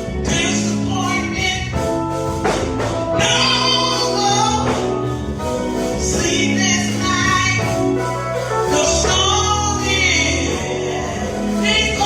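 Gospel music: voices singing over a band with a steady beat and tambourine.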